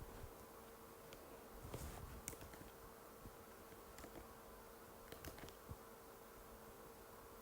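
A few scattered, faint key clicks from an Apple MacBook butterfly keyboard being typed on slowly, over a steady low hum.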